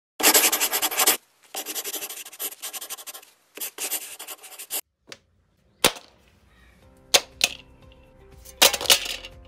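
Channel-intro sound effects: three loud bursts of rapid crackling noise, then a sharp hit about six seconds in and a few more sharp clicks, as quiet electronic background music comes in.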